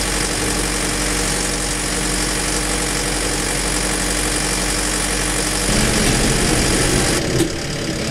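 Fendt 209 V tractor engine running steadily under load, heard from inside the cab. The sound shifts about six seconds in, and the high hiss cuts off sharply just after seven seconds.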